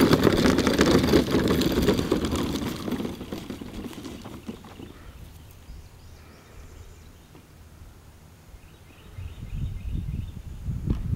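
Hard plastic wheels of a toddler's ride-on push car rumbling and rattling over bumpy lawn, loud for about the first three seconds and then fading as the car rolls away; low rumbles return near the end.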